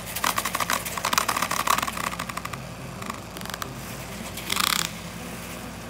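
Small battery-powered handheld whisk mixer whirring steadily as it beats egg white in a plastic cup. The whisk rattles rapidly in the cup for the first couple of seconds, then the sound settles lower, with a brief burst of noise near the end.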